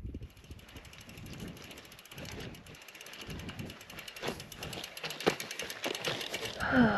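Gravel bike's rear freehub ticking fast and evenly as the bike is pushed uphill by hand, its pawls clicking as the wheel rolls. The ticking gets louder as the bike comes close. A short breathy sound comes from the rider near the end.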